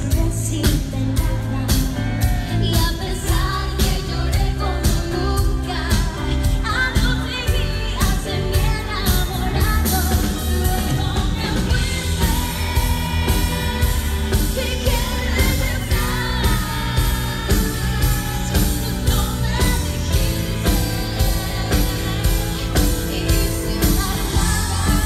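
Live pop band music played loud through a PA, with a woman singing lead into a microphone over a steady beat and bass.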